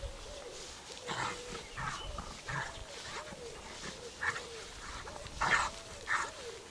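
Dogs vocalising while they play-fight: a string of short whining cries that rise and fall in pitch, mixed with short noisy huffs, several times over.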